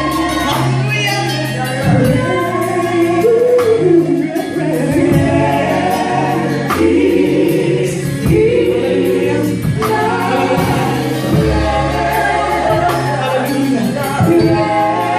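Gospel choir singing with a live band: held bass notes underneath and a steady drum beat.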